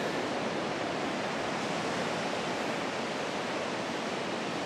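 Steady wash of ocean surf breaking along the beach, an even rushing noise with no distinct events.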